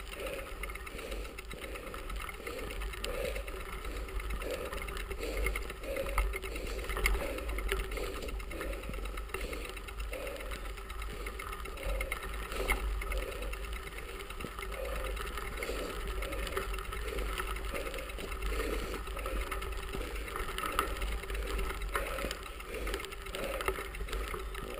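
Bicycle being ridden along a gravel path: tyre and drivetrain noise with a regular pulse about twice a second, over a low wind rumble on the handlebar camera.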